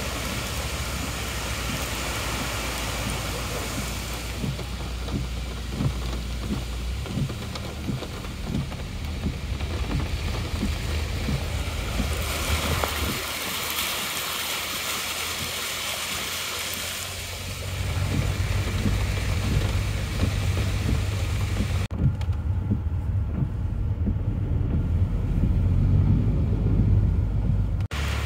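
Heavy rain and floodwater heard from inside a car creeping through standing water: a continuous rush of rain and water swishing under the tyres over the car's low rumble. About 22 seconds in the high rushing drops away abruptly, leaving mostly the low rumble.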